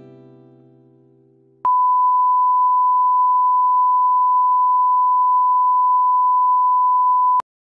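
The last strummed acoustic guitar chord of a song dying away, then a steady 1 kHz test tone that starts abruptly about a second and a half in and cuts off suddenly near the end: the reference tone that goes with television colour bars.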